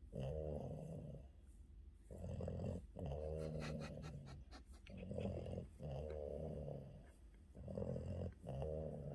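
Boston terrier snoring in its sleep: slow, even cycles of a noisy breath in followed by a breath out, about every two and a half to three seconds. A short run of faint clicks falls in the middle.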